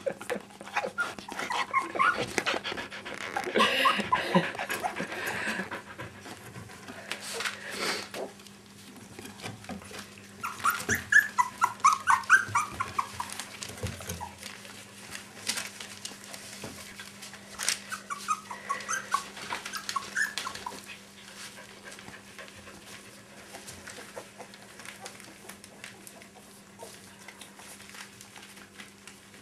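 Small dogs whining and yipping in three bouts, about four, twelve and nineteen seconds in, with scattered clicks between them. A steady low hum runs underneath.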